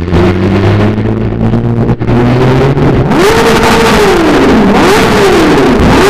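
Sport bike with an Austin Racing aftermarket exhaust, cruising at a steady engine note. From about halfway it is revved hard twice: each time the pitch climbs sharply, holds, then sinks back, and a third rev starts at the very end. It sounds out inside a road tunnel.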